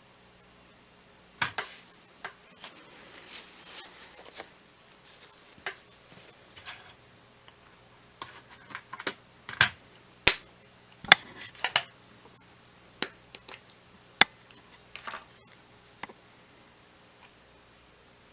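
Irregular sharp clicks, taps and short rustles of small objects being handled, with the busiest, loudest stretch about ten to twelve seconds in, over a faint steady hum.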